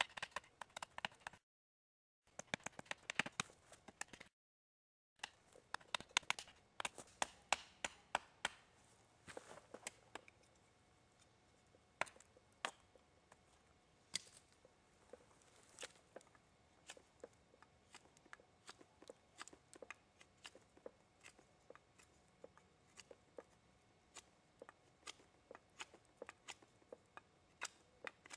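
Bushcraft knife carving a wooden spoon blank: a quiet run of short, sharp cutting clicks as the blade bites into the wood. The clicks come thick and fast for the first several seconds, with two brief dropouts, then turn into sparser single strokes.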